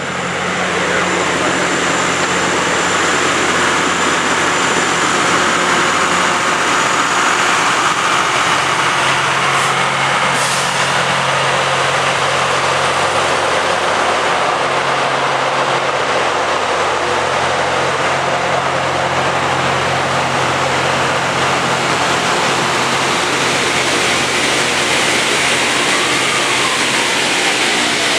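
Loram rail grinding train working the track: a loud, steady hiss of grinding stones on the rail over the even drone of its diesel engines.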